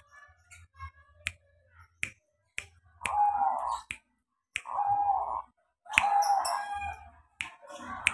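Caged zebra dove cooing, three or four calls of just under a second each from about three seconds in, with sharp clicks between them.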